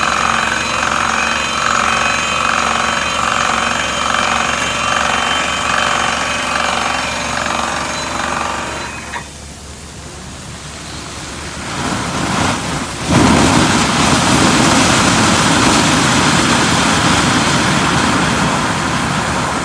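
Water-well drilling rig running a down-the-hole percussion hammer, a steady rhythmic hammering with the machine running under it. About nine seconds in it gives way to a quieter rush. A few seconds later compressed air and water blast out of the discharge hose as a loud, steady rushing hiss.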